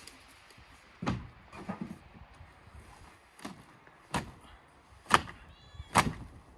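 Irregular knocks and bangs from demolition work on a wooden shed, about seven in all, the loudest near the end, with a short squeak a little after halfway.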